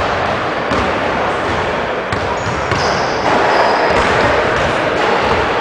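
Basketballs bouncing on a hardwood gym floor in a large echoing gym, with a steady din of hall noise, one heavy bounce about four seconds in and a few short high squeaks around the middle.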